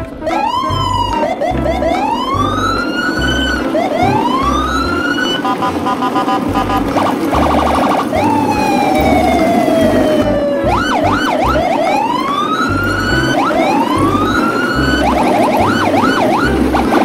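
Electronic music with repeated siren-like swooping whistles, rising arcs and long falling sweeps, over a pulsing bass beat, with short rapid buzzing trills now and then.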